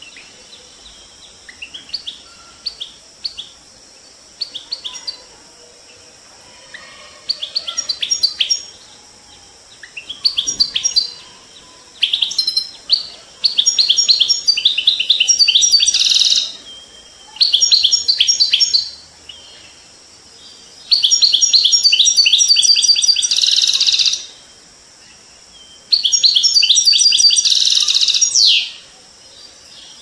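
European goldfinch singing: a few scattered chirps at first, then bursts of rapid, high twittering trills that come in phrases of one to three seconds with short pauses between, getting longer and louder toward the end. A steady faint hiss sits beneath the song.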